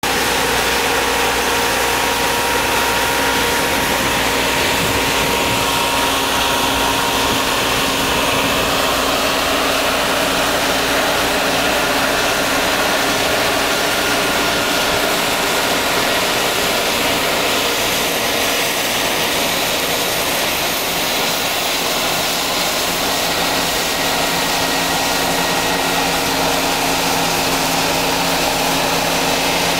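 John Deere CTS combine harvester running under load while cutting and threshing winter barley: a steady, unbroken mix of engine and threshing machinery noise with a constant hum.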